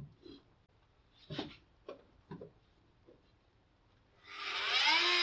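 A few short, scattered knocks and rubs of hand work in a bare car shell, then about four seconds in a loud swelling sound that rises in pitch and settles into a held musical tone.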